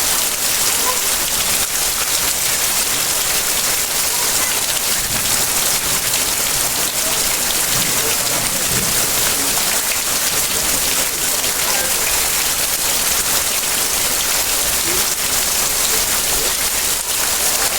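Heavy rain falling steadily: a dense, even hiss of drops with no letup.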